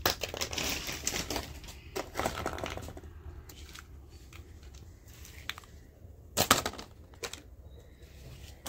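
Hollow plastic toys clattering and plastic packaging crinkling as the toys are handled and packed into a clear plastic tray. Busy clicking and rustling for about the first three seconds, then scattered clicks, with one sharp clatter about two thirds of the way in.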